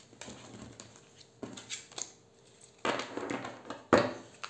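A deck of oracle cards being handled and shuffled by hand: a few soft card clicks, then two brief rushes of riffling card noise about three and four seconds in.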